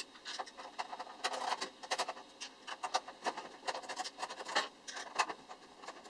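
Screwdriver backing out the screws that hold a computer power supply to the rear of a PC case: a run of quick, irregular scratching clicks that stops about five seconds in.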